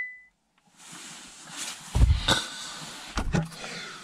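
A short electronic beep at the start, then handling noise from the camera being moved: rustling with a few loud bumps, a pair about two seconds in and another pair a little after three seconds.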